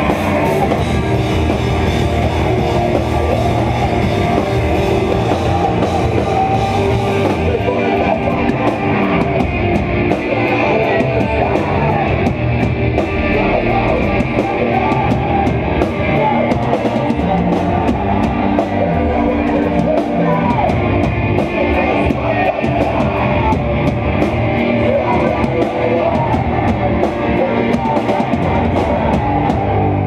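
Live hardcore band playing loud and without a break: distorted electric guitars over a pounding drum kit.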